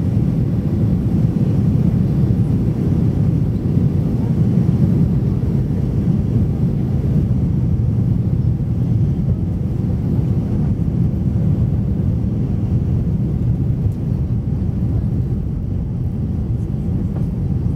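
Steady cabin noise inside an Airbus A319 airliner on approach: a constant low rumble of engines and airflow with no sudden events.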